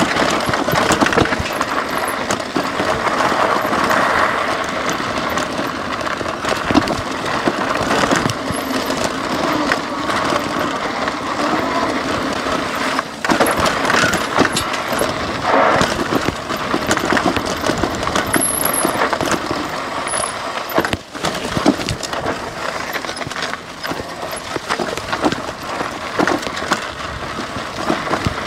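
A Lectric XP 3.0 e-bike with fat 20 x 3 inch tyres riding over a rocky trail: the tyres crunch over gravel while the frame, fenders and loose accessories keep up a constant clatter of clicks and knocks.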